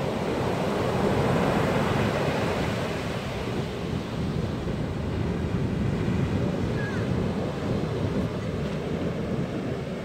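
Sea surf breaking and washing up a pebble beach, a steady rush of water that swells about a second in and again midway.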